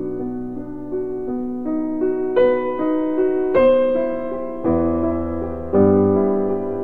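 Piano music: a slow melody over held chords, with a new note or chord about every second.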